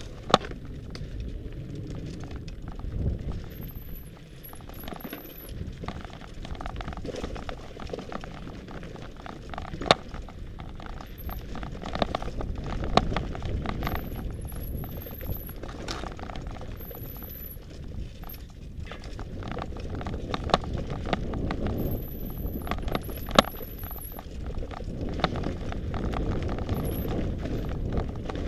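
Mountain bike rolling down a rocky dirt trail, its tyres crunching over gravel and stones under a steady low rumble. The bike rattles and knocks sharply over bumps, with a thin high squeal a few times.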